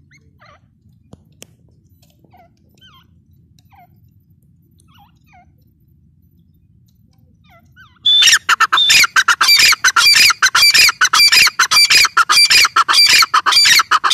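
Grey francolins calling. Faint, scattered bird chirps at first, then about eight seconds in a loud, fast, rapidly repeated run of shrill calls starts abruptly and continues.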